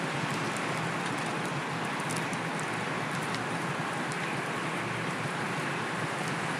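Steady rush of wind on the microphone and tyre noise from a fixed-gear bicycle being ridden, with a few faint ticks.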